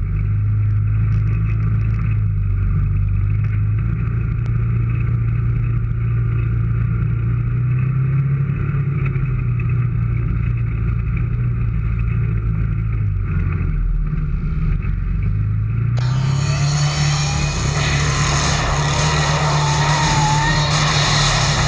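Off-road vehicle's engine running while driving, its pitch drifting slowly up and down with the throttle. About two-thirds of the way in, a loud rushing hiss of wind or road noise cuts in suddenly and continues over the engine.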